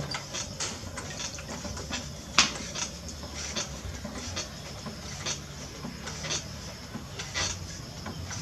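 Potter's wheel running with a steady low hum while wet, slip-covered hands squeeze and rub a soft clay jar, making irregular wet squelching clicks. One sharper click about two and a half seconds in.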